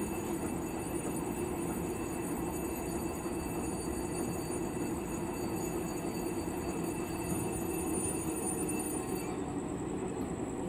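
Steady low rumble of a diesel locomotive standing at rest, with no cranking or starting events, plus faint high steady tones that change about nine seconds in.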